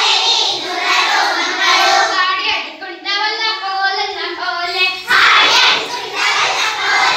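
A group of young children singing an action song together in unison, with a louder, noisier stretch about five seconds in.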